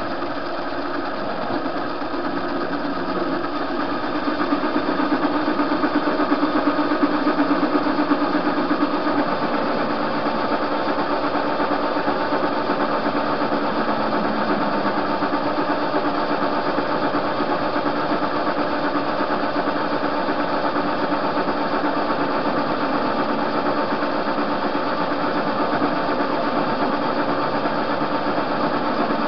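TV-16 metal lathe running, its spindle turning a metal workpiece as it is machined down, with a steady mechanical hum. The sound swells for several seconds about four seconds in.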